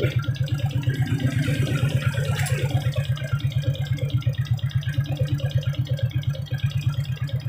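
Suzuki Shogun 125's single-cylinder four-stroke engine idling steadily with its battery connected, an even beat of about ten pulses a second. With the battery in, the engine runs smoothly.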